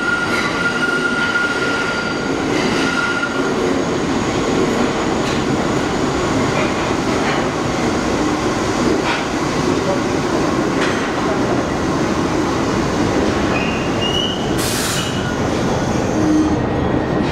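R62A subway cars of a 1 train moving along the platform: a steady rumble of steel wheels on rail with scattered clicks. There is a high wheel squeal in the first few seconds and another, shorter one near the end.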